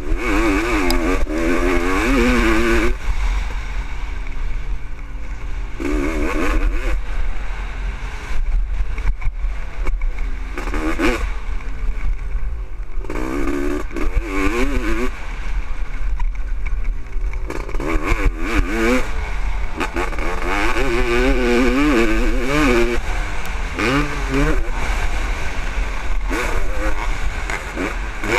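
1996 Honda CR500's single-cylinder two-stroke engine ridden hard on a motocross track, revving up and backing off over and over as the throttle is opened and shut through the corners. A steady low rumble of wind runs under it on the helmet-mounted camera.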